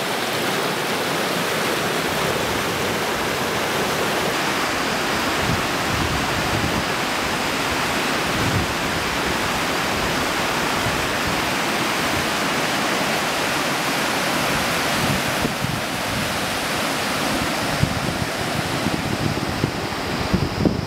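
Mountain river rapids rushing over boulders, a steady, unbroken noise of whitewater. Irregular low gusts of wind buffet the microphone.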